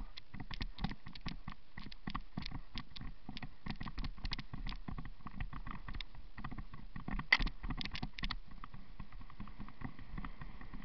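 Mountain bike descending a rough dirt trail: a dense, irregular clatter of knocks and rattles as the bike goes over roots and bumps, with a louder cluster of hits about seven seconds in.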